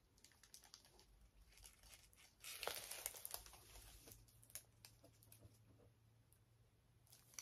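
Clear plastic sleeve of a diamond painting kit crinkling as it is handled, in one burst of rustling a couple of seconds in, with faint scattered ticks before and after; otherwise near silence.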